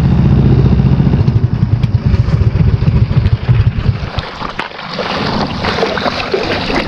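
Small boat engine running with a fast, low throbbing beat. About four and a half seconds in the engine drops back, and a rushing, splashing water noise takes over.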